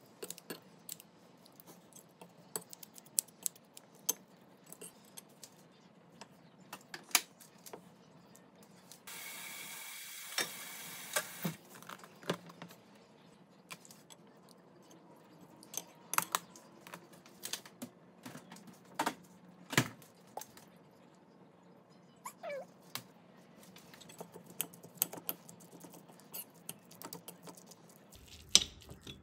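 Kitchen scissors snipping cooked vegetables in a ceramic bowl, then a metal spoon and wooden chopsticks clicking and scraping against the bowl as rice and a fried egg are mixed in. The clicks come irregularly throughout, with a steady hiss for a couple of seconds about nine seconds in.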